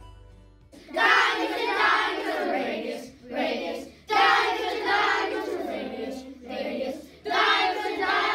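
A class of children singing a maths song together in unison, in loud phrases broken by short pauses, starting about a second in. Faint background music ends just before they start.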